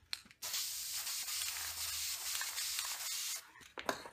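Aerosol spray-paint can spraying black paint through a stencil: a steady hiss for about three seconds that cuts off, followed near the end by a brief rustle as the taped stencil is peeled up.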